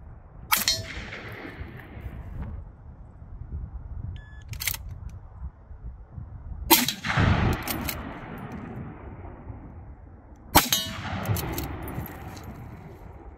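Three rifle shots several seconds apart, each followed at once by the clang of a steel IPSC target being hit and a long rolling echo. A fainter metallic clack comes between the first two shots.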